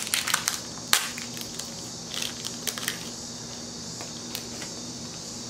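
Small plastic jewellery bag crinkling as it is torn open, with a sharp snap about a second in and a few short rustles after.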